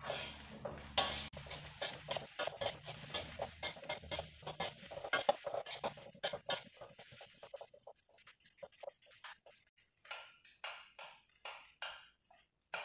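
Kitchen utensils clattering and scraping during food preparation: dense, quick taps that thin out after about six seconds to separate taps roughly twice a second.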